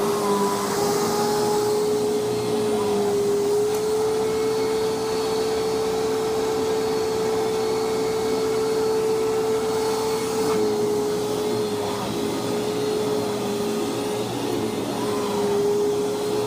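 Hoover WindTunnel Self-Propelled Ultra upright vacuum cleaner running, its rebuilt motor giving a loud, steady whine over a rush of air. The pitch rises slightly about three and a half seconds in and drops back about ten seconds in.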